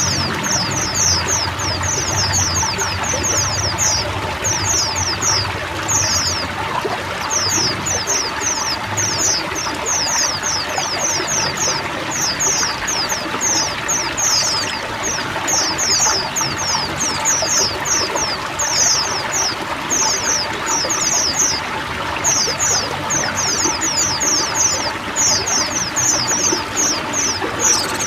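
A flock of white-eyes chirping in quick, dense runs of high, down-slurred notes, with short pauses between runs, over a steady rush of running water.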